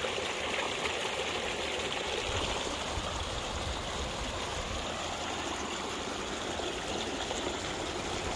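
Shallow creek running over rocks: a steady, even rush of water.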